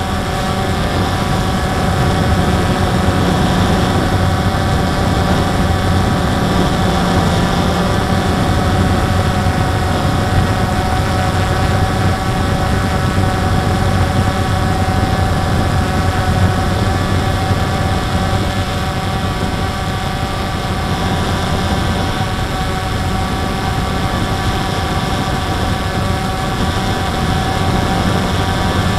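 DJI Phantom 2 quadcopter's motors and propellers running steadily in a hover, heard close up from the camera on the drone: a steady whine of several fixed pitches over a low hum.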